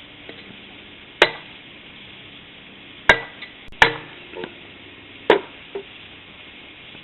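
Hammer blows driving a stake into the ground: four sharp, loud strikes spaced irregularly, with a couple of lighter taps between them.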